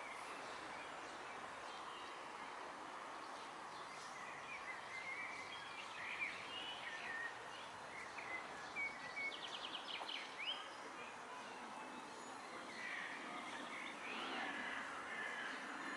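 Small songbirds chirping and calling over steady outdoor background noise, with a quick trill about halfway through and more chirps near the end.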